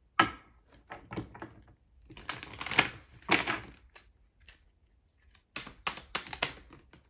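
A deck of oracle cards shuffled by hand: cards tapping and sliding against each other in short clicks, with two longer riffling rushes in the middle and a quick run of clicks near the end.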